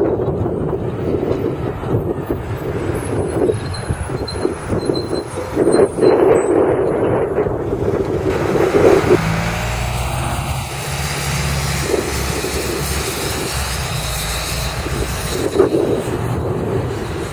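Orion VI city bus driving past close by and pulling away. About halfway through, its engine settles into a steady low drone.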